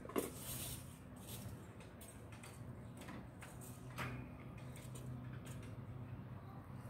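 A sharp knock just after the start, then a few fainter knocks and rustles from hands-on yard work, over a steady low hum.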